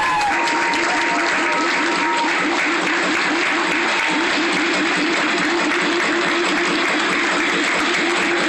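Theatre audience applauding, a dense, steady clapping that holds through the cast's bow.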